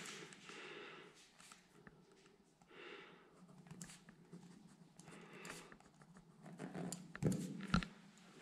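Faint shuffling and handling noises from someone moving about with the camera in a small concrete room, with a few dull knocks about seven seconds in.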